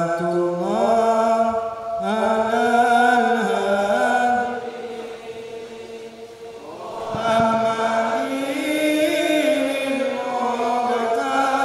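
A single voice chanting in long, drawn-out melodic phrases that glide from note to note, dropping back for about two seconds midway before the next phrase.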